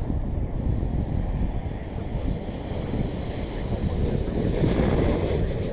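Strong gusty wind buffeting the microphone, a loud low rushing that swells near the end.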